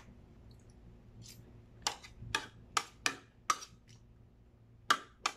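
Sounds of eating at a table: about seven short, sharp clicks and taps, bunched from about two seconds in and again near the end, as crisp fried chicken is chewed and a metal spoon works rice on a plate.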